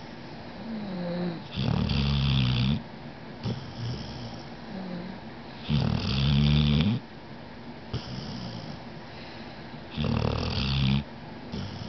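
Snoring in a steady rhythm: three loud snores about four seconds apart, each lasting about a second, with quieter breaths between them.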